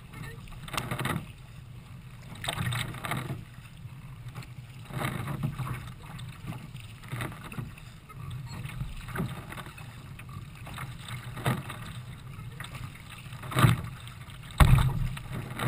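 Kayak paddle strokes splashing in a steady rhythm, about one a second, with water washing against the hull in choppy water. Two louder, heavier splashes or thumps come near the end.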